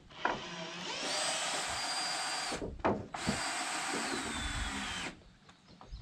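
Power drill boring into wood in two runs of about two seconds each with a short pause between. The motor's whine holds steady, then drops in pitch as the second run winds down.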